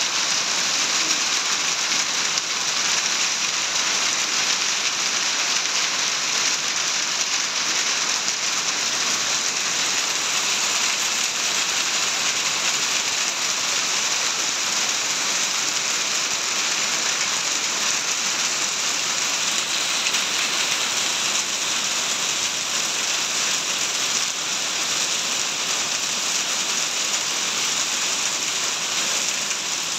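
Heavy rain mixed with small hail, falling steadily on a muddy yard and its puddles: an even, unbroken hiss of many drops.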